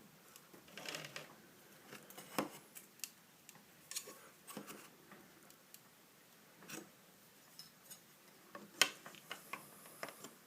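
Faint, scattered clicks and scrapes of metal putty knives working into a painted seam to pry a wooden glass stop loose, with one sharper click near the end.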